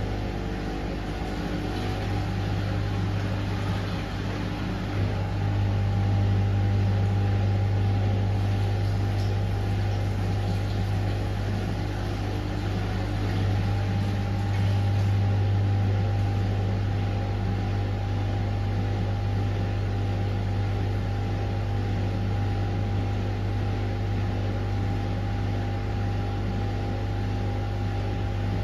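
Pasvens washing machine running a cotton 40 wash: a steady motor hum with a low drone and a few steady higher tones, growing a little louder for a few seconds about six seconds in and again around fifteen seconds in.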